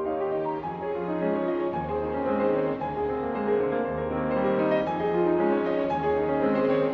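Background music led by piano, slow and steady, with sustained notes.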